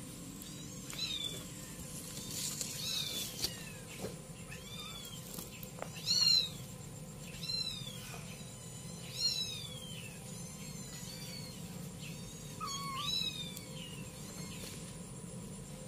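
Young kitten meowing over and over, a dozen or so high-pitched mews that each rise then fall, about one a second.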